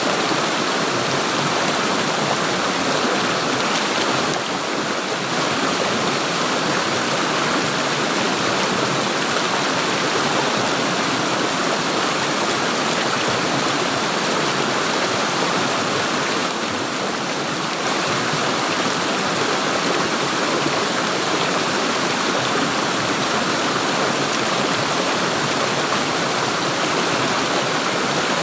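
Water flowing and gurgling steadily in a stream.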